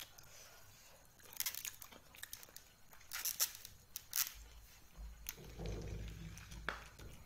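Close-up eating sounds: sharp, crunchy clicks of biting and chewing, with the crackle of food being torn apart by hand. A low rumble joins in the second half.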